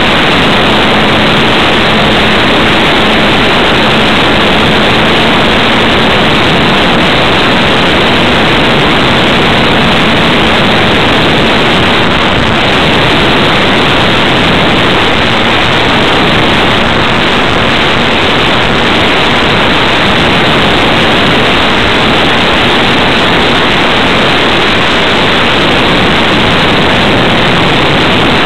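Loud, steady rush of airflow noise over the microphone of a camera mounted on a ParkZone T-28 Trojan electric RC plane in flight. A faint steady hum sits under it in the first few seconds.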